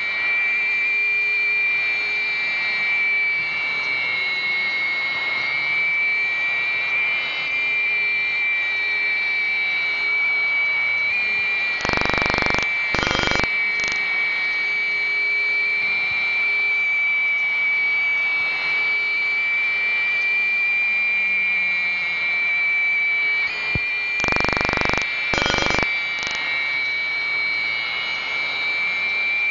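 Steady high-pitched whine of a jet turbine, with a rushing hiss beneath it. Twice, about twelve seconds in and again near the end, short loud rushes of noise cut in and out.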